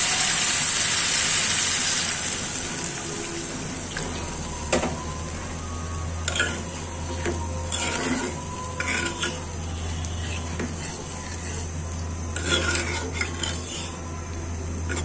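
Masala and fish sizzling in a blackened iron karahi, the sizzle dying down about two seconds in as water for the gravy goes in. After that a spatula scrapes and clinks against the pan in short bouts as the curry is stirred.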